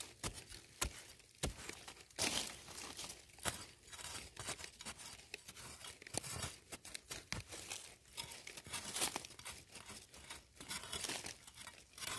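A metal digging blade chopping and scraping into dry, crumbly soil: irregular crunching strikes, a few of them sharper, with loose earth scraping and falling between them.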